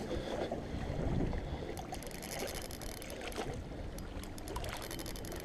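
Spinning reel being cranked against a hooked fish, with irregular clicking and buzzing from the reel and line from about two seconds in. Water sloshing against the rocks and wind on the microphone are under it.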